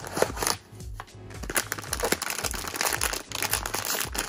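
Sealed plastic blind-box bag crinkling as it is drawn out of a cardboard box and handled, over background music with a steady beat.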